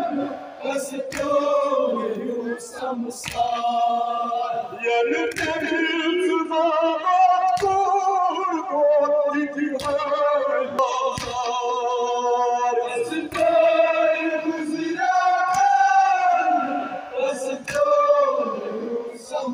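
Kashmiri noha, a Muharram lament, sung by a group of men in unison with a lead voice, in long, drawn-out mournful phrases. Occasional sharp slaps of hands beating chests (matam) come through the singing at irregular moments.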